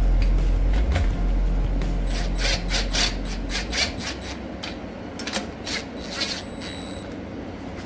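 Cordless drill spinning a socket down the cylinder-head nuts of a VW air-cooled engine in short runs, with the scrape and click of the socket on the nuts and studs, only lightly snugging the head down onto the pushrod tube seals. A low hum in the first half fades out about four seconds in.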